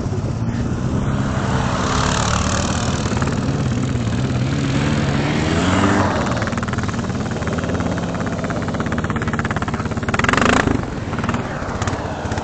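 ATV engine running and revving, its pitch climbing about five to six seconds in as it speeds up. About ten seconds in there is a brief loud rushing hiss.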